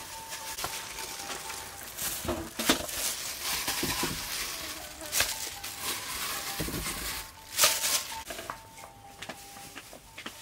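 Wooden pestle crushing and scraping chili in a clay mortar, a rough grinding noise broken by sharper knocks. The two loudest knocks come about three and about eight seconds in.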